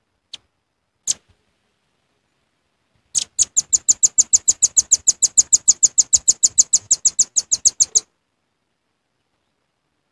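Velvet-fronted nuthatch (red-billed nuthatch) lure call: two sharp single chips, then a fast, even, high trill of about eight notes a second lasting about five seconds.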